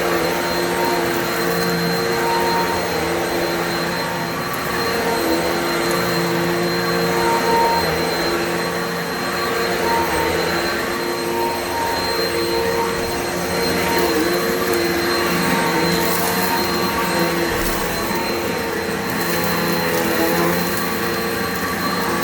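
Upright vacuum cleaner running steadily: a motor hum with a thin high whine over a rush of airflow, its pitch dipping slightly now and then as it is worked over the floor.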